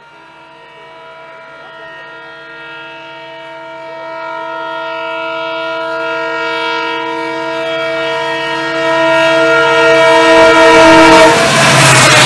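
A WDP-4D diesel locomotive's multi-tone air horn sounds in one long, unbroken blast, growing steadily louder as the locomotive approaches. About eleven seconds in the horn cuts off as the locomotive passes close by with a loud rush of engine and wheel noise.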